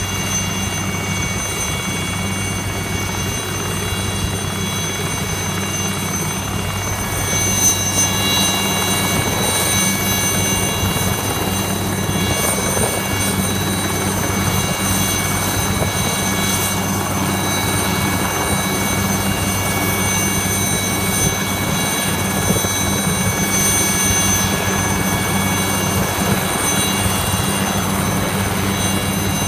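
Small Alouette-family turbine helicopter running on the ground with its rotor turning: a steady low rotor hum under a high turbine whine, which grows louder about seven seconds in.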